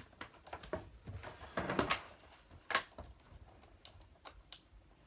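Scattered small clicks and knocks, with a short rustle about one and a half seconds in, from hands handling the parts and cables of a disassembled TV. The sharpest click comes near the middle.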